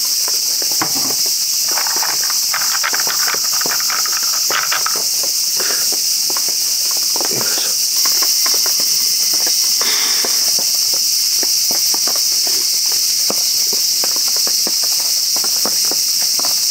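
A steady, high-pitched chorus of insects buzzing without a break, with scattered small clicks and knocks beneath it.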